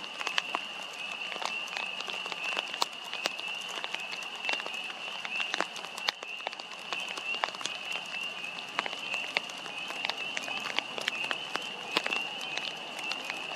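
A steady high-pitched trilling chorus of many small calling animals, with scattered sharp clicks throughout.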